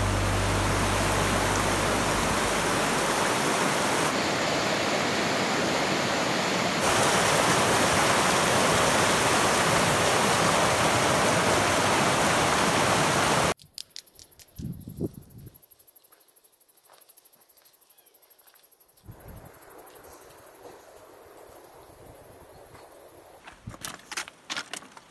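Rushing water of a mountain creek, a loud steady hiss, cuts off suddenly about halfway through to much quieter outdoor sound. Near the end come clicking footsteps and trekking-pole strikes on loose rock.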